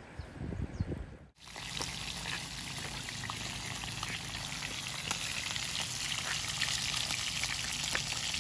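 Brief splashing of river water, then small river fish (ikan mungkus) with their roe frying in hot oil in a wok over a wood fire. The frying makes a steady sizzle full of small crackles that grows slightly louder.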